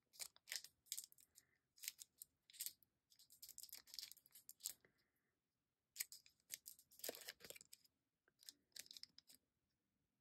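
Faint crinkling and tearing of the plastic packet around a Pilot ink cartridge as it is opened, with small clicks and rustles as the cartridge is handled. The sounds come in short, scattered bursts, busiest a little after halfway.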